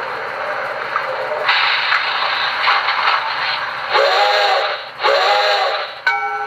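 Recorded steam-locomotive sounds from a QSI Maxx Traxx Heartland Steam model-train sound panel: a steady steam hiss grows louder about a second and a half in. Two short steam-whistle toots follow, the two-short departure signal. A locomotive bell starts ringing near the end.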